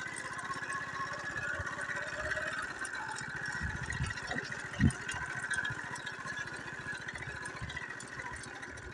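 Small engine of a moving vehicle running steadily with an even, fast pulse, with one short thump about five seconds in.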